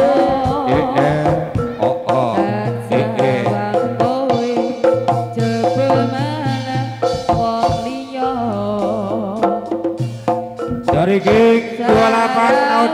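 Live Javanese jaranan music: hand drums playing a steady beat under melodic instruments, in an instrumental stretch between sung lines.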